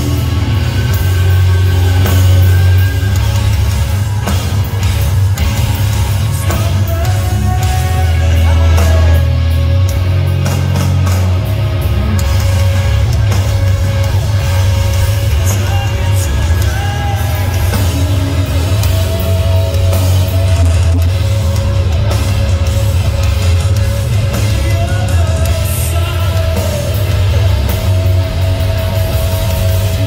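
Live rock band playing loud: distorted electric guitars, bass and drums, with vocals.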